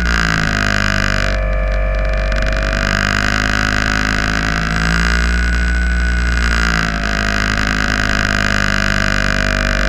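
Electric motor and spinning propeller of a HobbyZone Super Cub RC airplane, heard from a camera mounted on the plane, running at steady throttle. Its whine holds steady, drifting slightly up and down in pitch.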